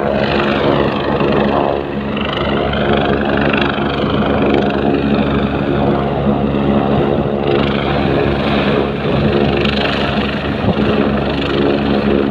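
Helicopter on the ground spinning up its rotor before lift-off: a steady engine and rotor drone with a high whine that wavers slightly in pitch.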